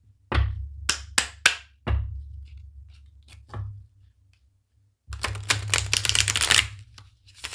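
Tarot cards being handled and shuffled: several sharp snaps in the first few seconds, then a dense, rapid riffling rattle lasting about two seconds.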